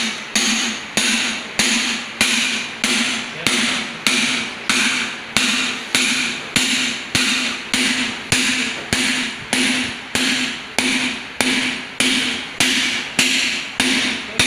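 Hammer blows on a driver cap seated on a cylinder liner, driving the liner into the bore of an Isuzu Panther diesel engine block. Steady, even strikes about two a second, each ringing briefly like struck metal.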